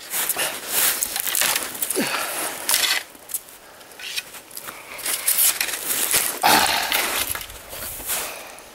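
Irregular crunching and rustling in snow and dry brush as a man moves about handling a dead stick, in several uneven bursts.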